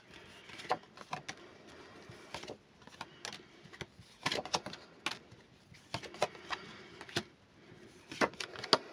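A deck of tarot cards being shuffled by hand, the cards sliding and tapping against each other in irregular soft clicks.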